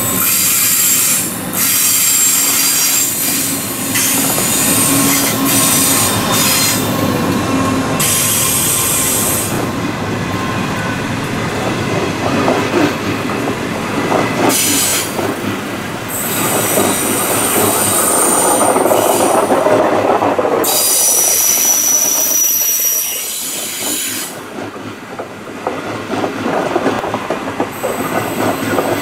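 The Great Southern passenger train passes close by, its NR class diesel-electric locomotives leading a long line of stainless-steel carriages. The wheels clatter over the rail joints, with high thin wheel squeal at times, loudest in the middle stretch.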